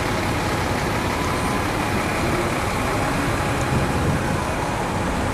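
Steady city street noise: road traffic running nearby, an even rumble with no single event standing out.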